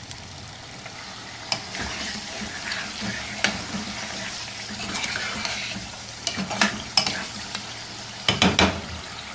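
Chicken pieces sizzling in freshly added hot ghee in a wok as a spatula stirs and scrapes them around. Several sharp knocks of the spatula against the pan, the loudest near the end.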